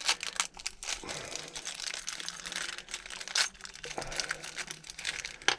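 Packaging crinkling and rustling as it is opened and the parts inside are handled, with a sharper crackle about three and a half seconds in and another near the end.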